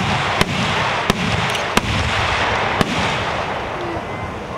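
Aerial fireworks shells bursting: about four sharp bangs, irregularly spaced, over a steady dense noise.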